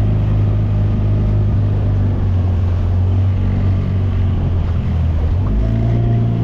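Small outboard motor of a boat running steadily under way, its pitch rising slightly about five and a half seconds in.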